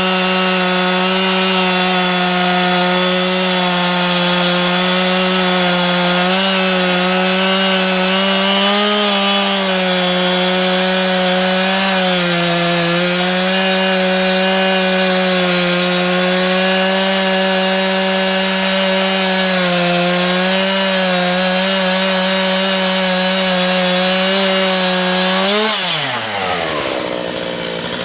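Two-stroke chainsaw in a chainsaw mill attachment, running at full throttle while ripping a log lengthwise into a beam. The engine note holds steady with small dips under the load of the cut. Near the end it falls sharply to idle as the throttle is released at the end of the cut.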